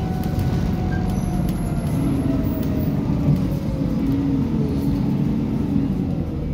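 A single-decker bus's engine and drivetrain heard from inside the passenger saloon: a steady low rumble, with a thin whine that slowly falls in pitch through the middle.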